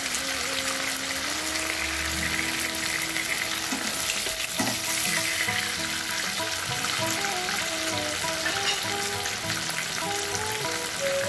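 Diced potatoes and chopped tomato sizzling steadily in hot oil in a karai, stirred with a spatula, with a couple of scrapes about four to five seconds in. A soft background-music melody plays underneath.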